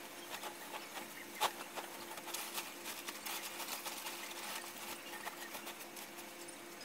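Bedding rustling and flapping as a duvet and pillows are shaken and arranged on a bed, in irregular scratchy bursts, with one sharp knock about a second and a half in. A faint steady hum runs underneath.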